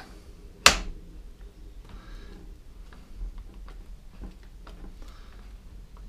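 Hands handling a Homelite chainsaw's body and chain-brake assembly: one sharp click just under a second in, then faint knocks and rattles.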